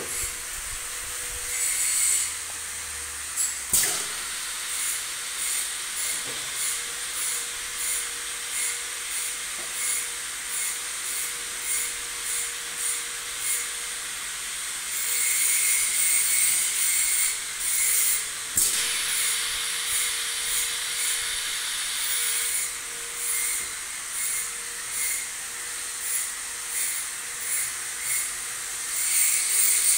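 Semi-automatic pneumatic 8-nozzle liquid filling machine running a test fill: a steady hiss of compressed air with repeated short puffs as the valves and cylinders work, over a steady hum. A sharp clunk comes about 4 s in and another about 19 s in.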